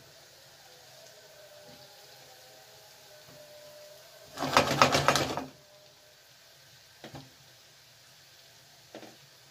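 Kitchen cookware clattering on the gas hob: a loud, rapid metallic rattle lasting about a second, midway through. Two light taps follow near the end.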